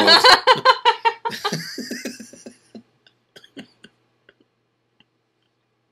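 Laughter: a burst of rhythmic laughing that fades out over about three seconds, followed by a few faint clicks.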